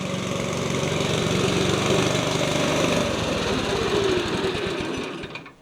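Small petrol engine of a vintage Atco Royal ride-on lawn mower running, its firing beat slowing after about three seconds and dying away near the end.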